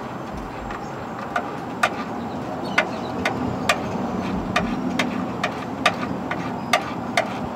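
Socket ratchet clicking in short strokes, about two clicks a second, as the lower starter-motor bolt is backed out. A steady low hum sits underneath.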